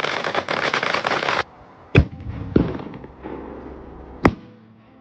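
A string of firecrackers going off in a rapid, dense crackle that stops abruptly about a second and a half in, followed by three separate loud bangs.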